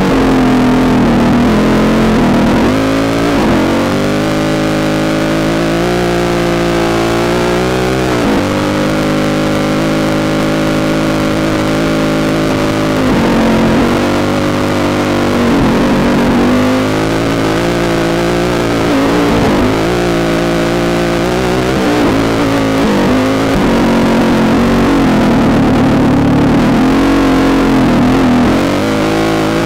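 Off-road racing dirt bike engine heard from the rider's helmet camera. It revs up and drops back again and again, with the pitch climbing and then falling every few seconds as the rider works the throttle and gears.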